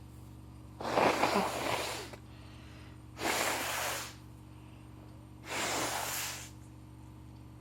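A woman with a heavy cold sneezing and snorting through a blocked nose: a loud sneeze about a second in, then two shorter, quieter snorts a couple of seconds apart.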